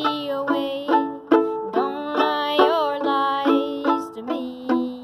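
Carbon-fibre violin played with a bow: an instrumental melody of short, separately attacked notes, with one note sliding in pitch about halfway through.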